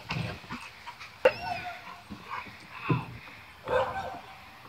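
Dogs playing and barking in short bursts. About a second in comes a sharp, high yelp that slides down in pitch.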